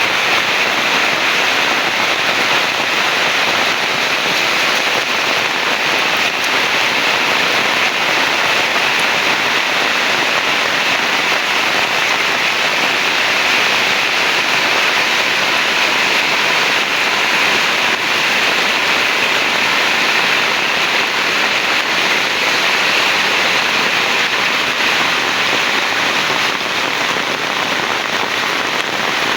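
Heavy rain pouring steadily, a loud, even hiss with no let-up and no thunder.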